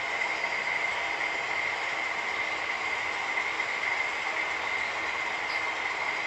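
HO scale model freight train rolling past on the layout track: a steady running noise of wheels on rail with a constant high whine.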